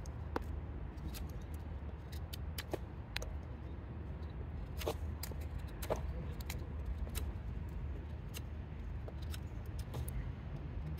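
Gerber Bear Grylls Ultimate Pro knife whittling a pawpaw branch to a point: short, irregular scraping cuts, roughly one a second, over a steady low rumble.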